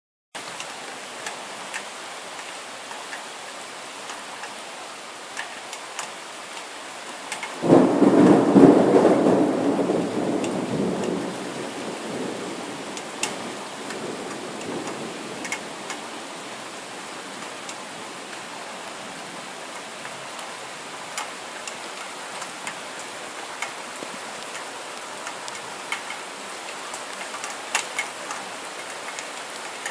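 Steady rain falling, with scattered sharp drip ticks. About eight seconds in, thunder breaks suddenly and loudly, then rumbles away over several seconds.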